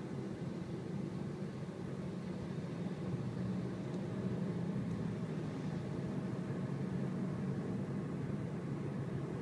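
Interior noise of a car driving at steady speed: a low, steady hum of engine and tyres on the road, heard from inside the cabin. It grows slightly louder about three seconds in.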